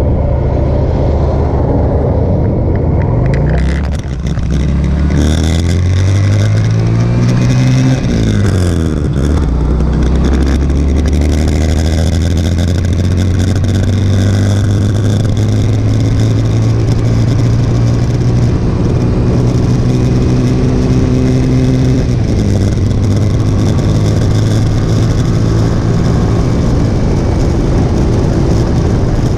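Motorcycle engine pulling away, its note rising and then dropping sharply at an upshift about eight seconds in. It then settles into a cruise with the note slowly climbing, and steps down again at a second shift about two-thirds of the way through. A steady rush of wind noise runs under the engine throughout.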